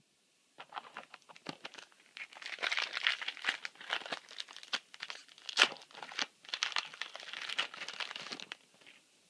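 A Yu-Gi-Oh booster pack's foil wrapper being torn open and crinkled. A few light crackles come first, then about six seconds of dense crinkling.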